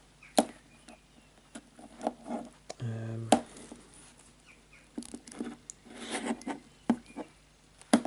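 Scattered sharp clicks and light knocks from an Abus cable combination lock being handled in the hands.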